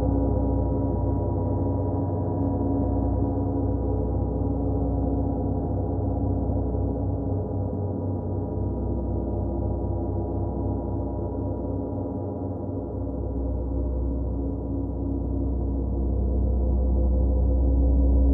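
A gong ringing in a sustained drone of many steady overtones, with a deep low hum beneath, dipping slightly and then swelling louder near the end.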